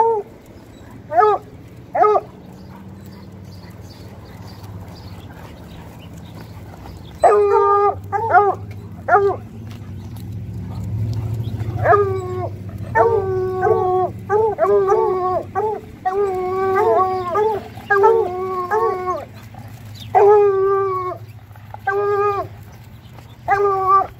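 Bluetick coonhounds howling, a hound's bawling bay repeated again and again: a few short calls at first, a quick string of bays in the middle, and longer drawn-out howls near the end.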